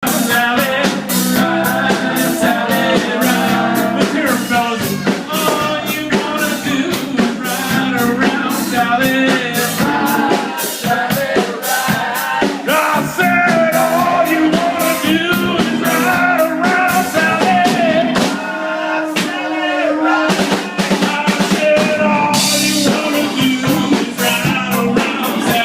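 A band playing blues during a sound check: a drum kit keeping a steady beat under a singing voice and guitar.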